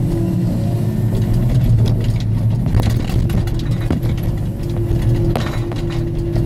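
Timbco feller buncher's diesel engine running steadily as its hydraulic felling head works logs, with a few sharp knocks in the middle. A higher steady whine joins about two-thirds of the way through.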